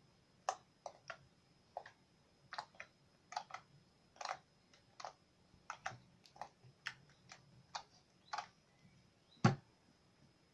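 Homemade red slime being poked and pressed by fingers, making short, sharp, irregular clicks and pops about two a second, with one louder pop and thump near the end.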